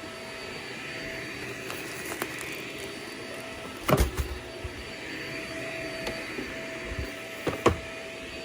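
Vacuum cleaner running steadily, with two sharp knocks, one about halfway through and one near the end.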